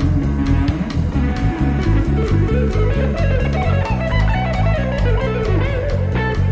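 Instrumental band music: an electric guitar plays a melodic line that climbs and then falls back, over a busy bass line and a drum kit with a fast, even hi-hat pulse.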